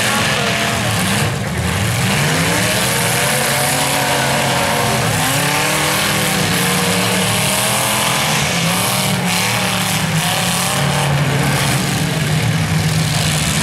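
Several demolition-derby car engines revving up and down at once, overlapping and unbroken, with no let-up.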